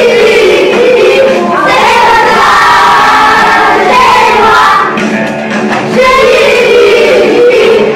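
A group of children singing a song together, accompanied by acoustic guitars and piano.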